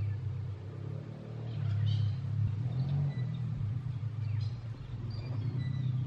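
A steady low rumble with a few faint high chirps over it.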